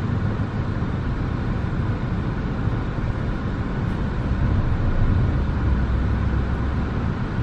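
Car engine running with a steady low rumble, heard from inside the cabin as the car creeps forward and stops to idle.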